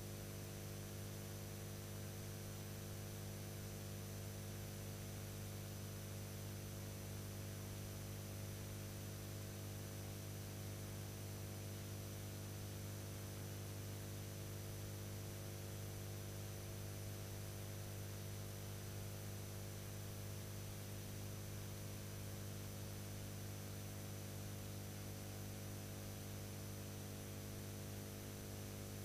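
Steady electrical mains hum with several overtones and a thin high whine over faint hiss, unchanging throughout: the noise floor of the transfer of a silent film, with no other sound.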